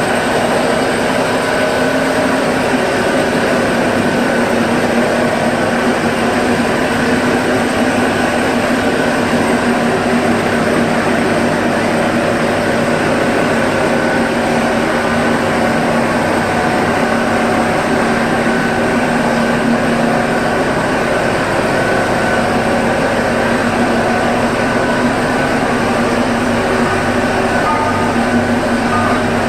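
Bamboo sawdust grinding machine running continuously, a loud steady mechanical noise with a constant hum and no change in speed.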